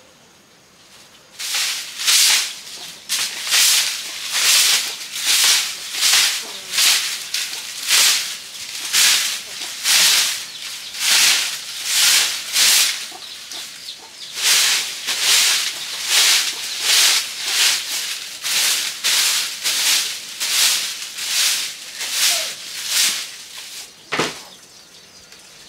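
Hand broom sweeping a wooden platform: regular swishing strokes about one and a half a second, with a short pause around the middle. A single thump near the end.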